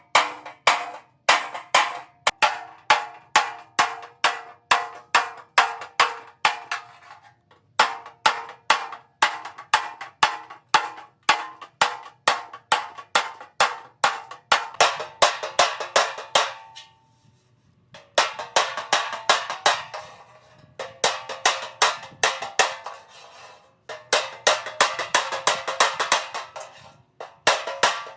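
Rapid, regular hammer blows on metal, about two to three a second, each with a short metallic ring. There is a pause of about a second and a half around the middle.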